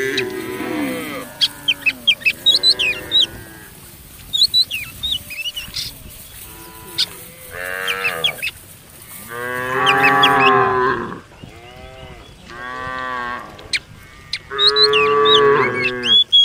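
Cattle mooing repeatedly: long drawn-out calls every second or two, some overlapping at different pitches, the loudest about ten seconds in. Short high chirps sound between the calls.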